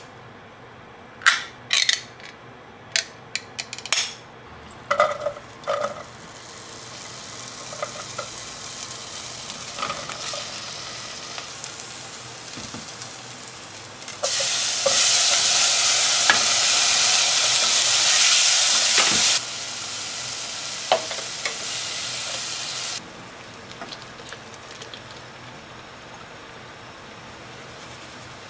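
A few sharp metallic clicks as a pull-tab can of tuna is worked open, then okra frying in oil in a pot: a sizzle that builds, turns much louder for about five seconds from about halfway, then eases and settles to a soft sizzle under stirring.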